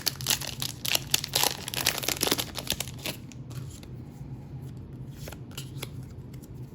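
Trading-card booster pack wrapper being torn open and crinkled: a dense run of crackles for about three seconds, then sparser, softer clicks as the cards are handled.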